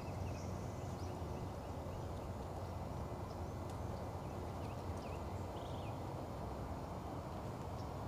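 Steady low outdoor background noise with a few faint, short bird chirps scattered through it.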